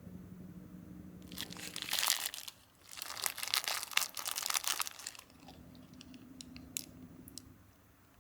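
Crinkly food packaging being crumpled and torn open in two bursts, followed by a few light clicks. A low steady hum is heard before and after.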